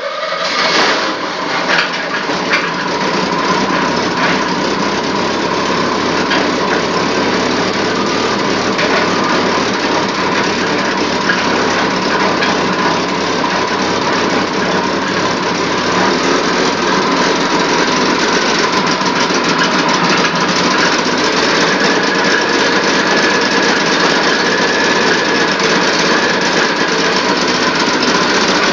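4.1-litre Chevrolet straight-six engine, just fired up, running steadily.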